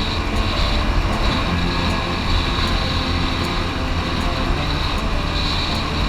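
Boat's outboard motor running steadily under way, a continuous low rumble with hiss over it.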